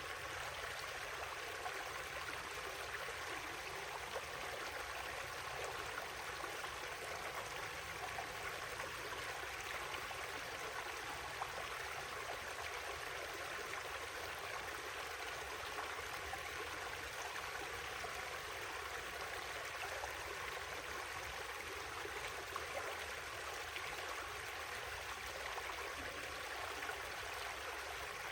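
River water flowing, a steady unbroken rush.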